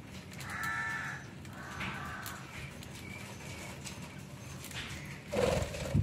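Budgerigars feeding on fresh green leaves: two short budgie calls in the first two seconds, light clicks of beaks pecking and stems being handled, and a louder rustling burst near the end.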